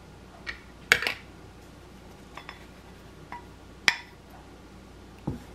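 Kitchen utensils knocking against glass jars and a ceramic bowl as cream is spooned and scraped out: a handful of short, sharp clinks, the loudest a double knock about a second in and another just before four seconds.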